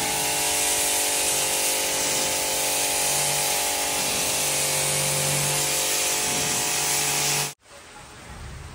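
Electric car-washer pressure washer running, its jet hissing as it sprays a doormat, over the steady whine and hum of the pump motor. It cuts off suddenly about seven and a half seconds in, followed by a softer steady hiss of rain.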